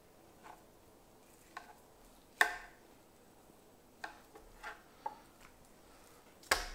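Boning knife trimming venison on a wooden cutting board: scattered light taps and knocks of the blade and meat on the board, the loudest about two and a half seconds in and again near the end.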